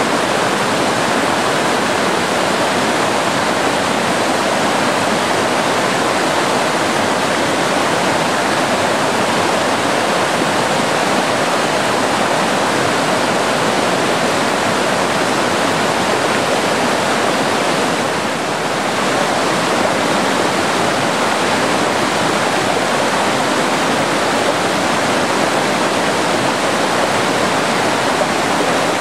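Fast-running stream water making a loud, steady rush that swells in at the start, with a brief dip about two-thirds of the way through.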